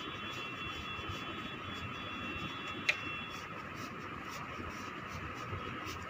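Steady background hiss and hum with a faint high whine, broken by one sharp click about halfway through.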